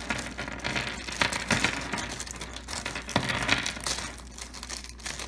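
A thin plastic bag crinkling as it is shaken out, with small plastic toy figures clattering onto a wooden tabletop in quick, irregular clicks.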